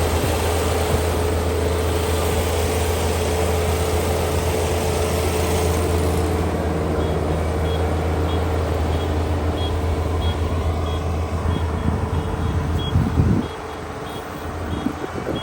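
Kubota ER572 combine harvester's 72-horsepower engine running with a steady low hum. About halfway in the high hiss fades, and from then on a short high beep repeats about one and a half times a second. Near the end the engine drops to a lower, quieter note.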